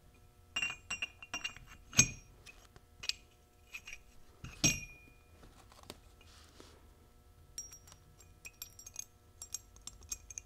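Steel parts of a Muncie four-speed synchronizer clinking as the shifter keys and springs are fitted into the hub and slider sleeve. A run of light metallic clicks and ticks, with two louder ringing clinks about two and five seconds in.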